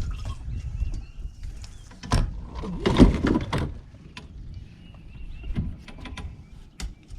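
Knocks and clunks of gear being handled in a fishing boat, the loudest a heavy thump about three seconds in.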